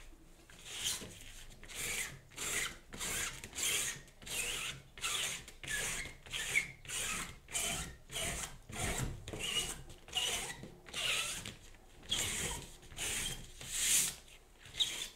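Fingers rubbing back and forth over paper, about two strokes a second, peeling dried drawing gum (masking fluid) off the painted surface.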